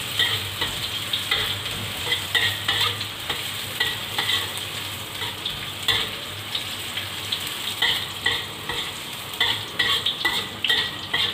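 Sliced onions sizzling in hot oil in a wok while a metal spatula stirs and scrapes them against the pan in irregular strokes, about two a second. The onions are being sautéed until wilted.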